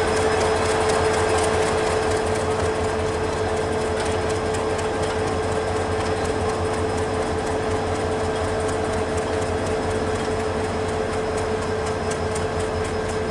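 Diesel locomotive running slowly in reverse, a steady engine drone with one constant whine, easing slightly as it draws away. Faint clicks of wheels over rail joints.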